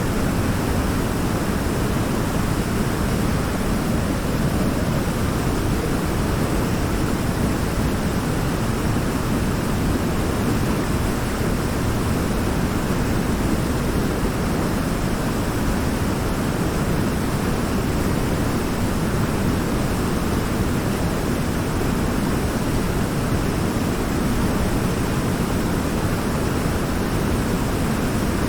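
Waterfall: water falling and churning in a steady, unbroken rush, heaviest in the low range.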